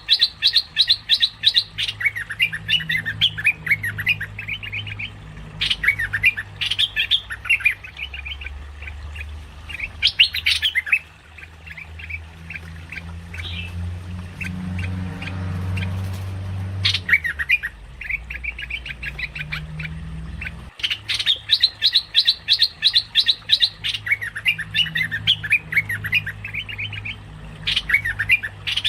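Merbah lekir bulbul song from a lure-call recording: bouts of quick, bubbly chattering notes, with a pause of several seconds about midway, over a low steady hum.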